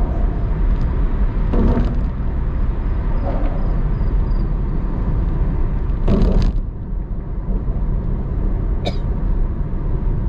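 Car being driven, with a steady low rumble of engine and road noise. A few short knocks break through it, the loudest about six seconds in.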